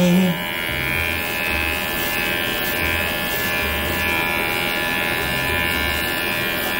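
Electric pet hair clipper running steadily, clipping a Chihuahua's fur, with an even motor hum.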